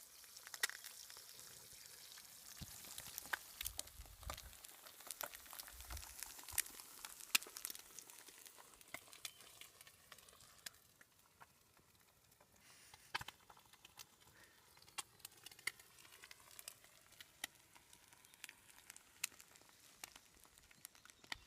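Eggs frying in a pan: a quiet sizzle with scattered crackles and pops, busier in the first half and thinning out after about ten seconds.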